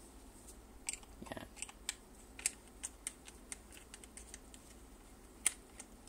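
Small, irregular clicks and ticks of a screwdriver working on the screws of a Mercedes W210 ignition switch's plastic housing, with the housing handled in the fingers; one sharper click near the end.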